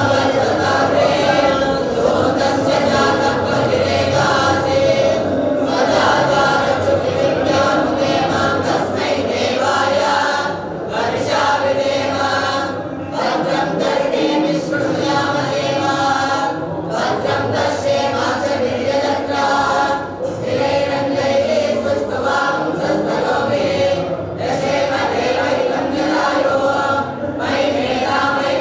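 A group of young male voices chanting Sanskrit prayers in unison, in steady phrases with short pauses between them.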